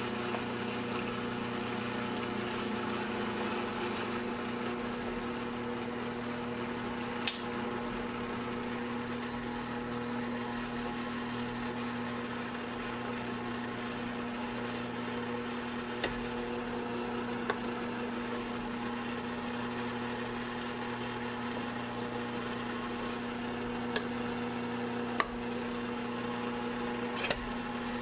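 Sunbeam MixMaster Heritage Series stand mixer's 350-watt motor running at a steady pitch, its beaters mixing flour into cookie dough in a steel bowl. Several short sharp clicks are scattered through.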